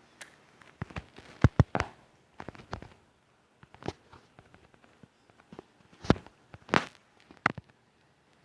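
A string of irregular sharp knocks and clicks, some close together in pairs. The loudest come about one and a half seconds in and again near the seven-second mark.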